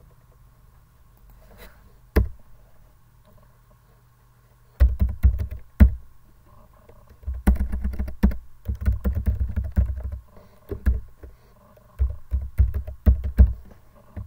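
Typing on a computer keyboard: a single keystroke about two seconds in, then bursts of rapid key presses from about five seconds on, broken by short pauses.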